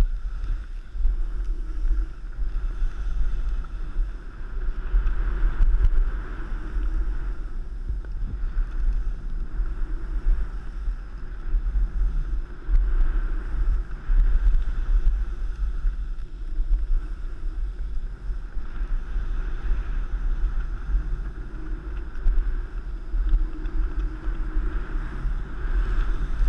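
Wind buffeting the microphone of a camera moving down a ski slope, with the steady hiss and scrape of edges sliding over snow that swells and fades with the turns.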